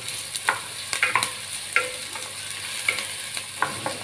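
Chopped onions, shallots and green chillies sizzling in sesame oil in a clay pot, stirred with a wooden spatula that scrapes and knocks against the pot in short, irregular strokes.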